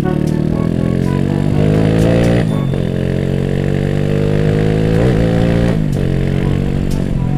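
Honda Astrea Grand's single-cylinder four-stroke engine under acceleration while ridden. The exhaust note rises, drops sharply about two and a half seconds in as the bike changes gear, rises again, and drops once more near six seconds in.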